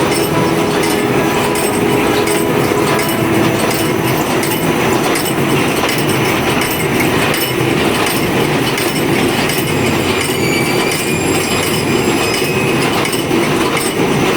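Hose-making factory machinery running: a loud, steady mechanical din with a faint rattling tick throughout.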